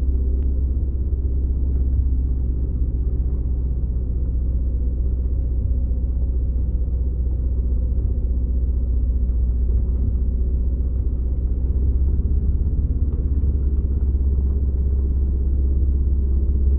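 A vehicle engine running at a steady speed, heard as a loud, even low rumble with a faint hum above it.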